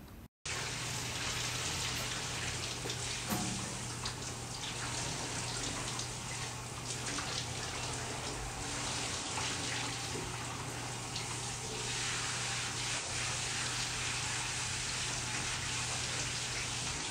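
Tap water running steadily into a sink, over a steady low hum.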